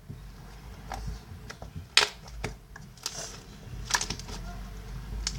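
Irregular clicks and knocks of small objects being picked up and handled, the sharpest knock about two seconds in, with a brief hiss around three seconds.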